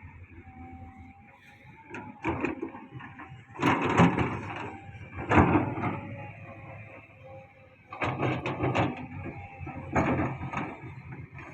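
Heavy earthmoving machinery working: a steady low rumble broken by several loud bursts of clanking and scraping, about two, four, five and a half, eight and ten seconds in.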